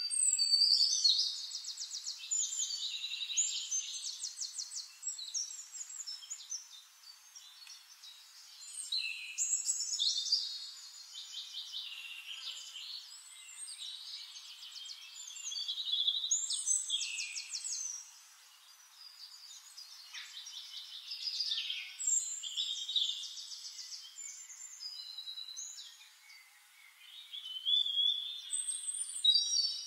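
A songbird singing: phrases of several seconds made of rapid trills, whistles and pitch glides, separated by short pauses.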